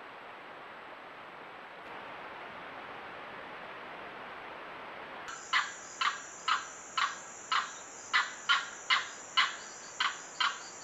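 Steady hiss, then about halfway through an animal begins a run of short, sharp calls, about two a second, some eleven in all.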